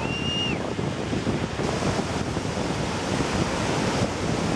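Steady wind noise on the microphone mixed with the rush of a waterfall and river in the gorge below. A brief high whistled note sounds right at the start.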